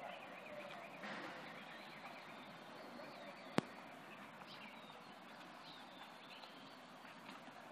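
Faint outdoor ambience with small birds chirping at a distance, and a single sharp click about three and a half seconds in.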